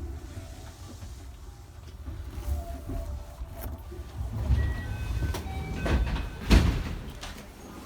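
Electric train running with a low rumble, a few short steady tones partway through, and a sharp knock about six and a half seconds in.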